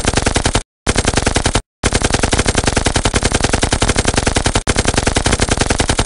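Machine-gun fire sound effect in rapid bursts: a short burst, a brief pause, a second short burst, then a long burst of about four seconds that stops abruptly.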